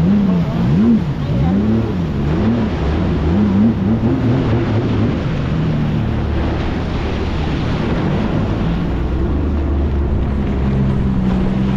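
Jet ski engine running on the water, its pitch rising and falling over and over for the first few seconds, then holding steadier. A steady rush of wind and water runs underneath.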